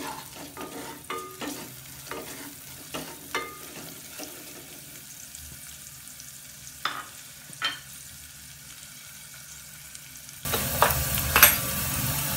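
Chopped onions sizzling as they fry in oil in a metal saucepan. A wooden spatula stirs and knocks against the pan through the first few seconds and twice more near the middle. About ten seconds in, the sizzling suddenly gets louder.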